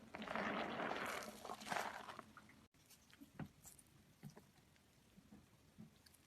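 Soaked bar soap squeezed by hand, a dense squishing for about two and a half seconds. After a sudden break, only faint small clicks and squelches.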